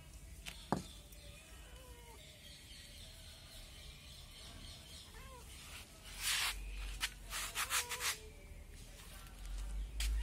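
A single sharp click just under a second in over faint background. About six seconds in comes a run of short scraping rustles lasting about two seconds.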